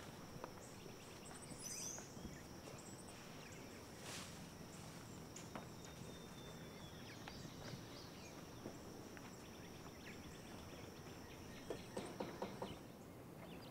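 Summer outdoor ambience: a steady high insect drone with a bird chirping briefly near the start and faint scattered footsteps. Near the end the drone stops and about four quick knocks sound, knocking on a door.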